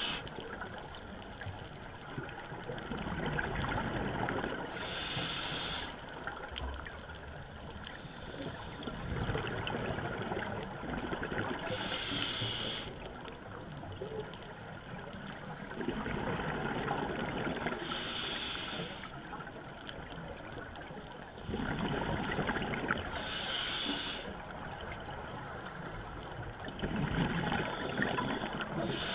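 A scuba diver breathing through a regulator underwater, heard through a GoPro's waterproof housing. Each breath gives about two seconds of rumbling exhaled bubbles and then a short, high hiss from the regulator. The cycle repeats about every six seconds, five times.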